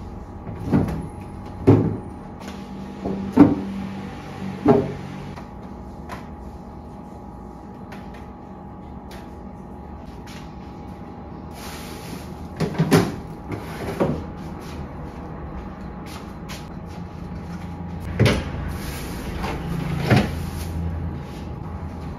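Refrigerator shelves and crisper drawer being loaded with produce and containers: a series of separate plastic clunks and knocks, four in quick succession, a few more in the middle and two near the end.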